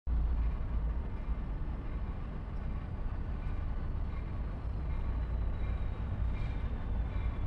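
Low steady rumble of an approaching diesel passenger train, with a railroad crossing bell ringing faintly above it.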